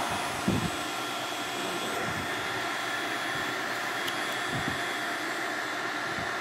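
Steady whooshing machine noise with faint high whines, and a few soft low thumps.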